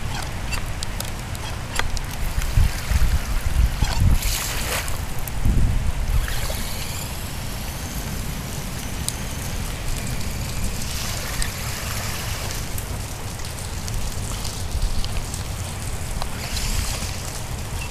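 Heavy rain falling and water splashing as a radio-controlled crawler drives through deep water, with wind buffeting the microphone.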